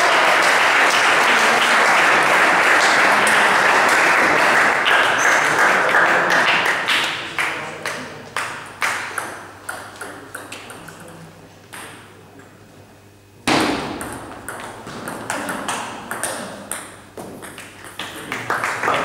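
Table tennis ball ticking again and again on the table and bat between points. The first five seconds or so are covered by a loud, even rushing noise, and the ticks stand out after that.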